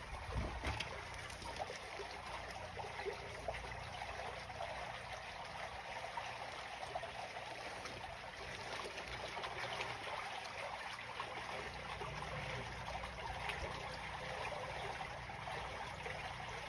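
Water flowing and trickling steadily in a roadside drainage ditch, with a couple of soft low bumps near the start.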